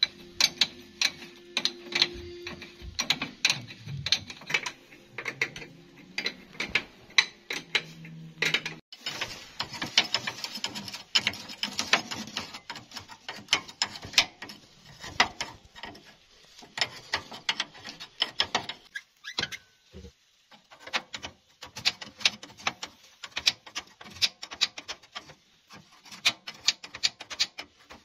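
Ratcheting wrench clicking in quick runs while bolts on a concrete mixer's clutch assembly are turned, with light metal knocks of the tool on the fittings.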